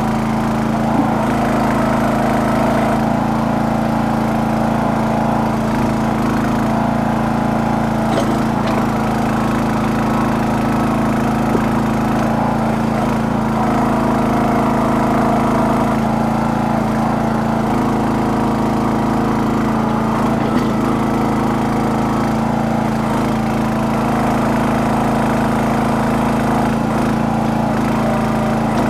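Small engine of a towable backhoe running steadily at working speed while it digs, the pitch holding constant as the load on it shifts, with a few light knocks.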